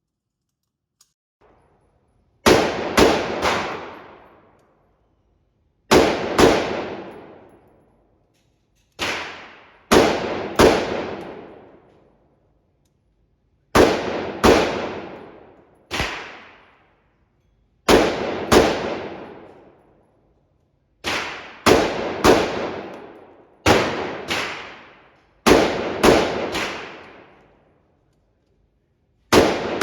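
Gunshots echoing in an indoor shooting range, about twenty in all, fired in quick pairs and triples with pauses of a second or two between groups. Each shot rings off the walls and dies away over about a second.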